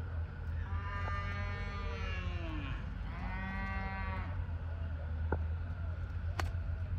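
Two long drawn-out animal calls, the first falling in pitch at its end, over a steady low rumble. A few sharp clicks follow, one clear click near the end.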